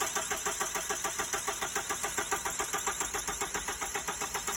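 Starter motor cranking a diesel engine in even pulses, about nine a second, without the engine catching; the cranking stops abruptly near the end.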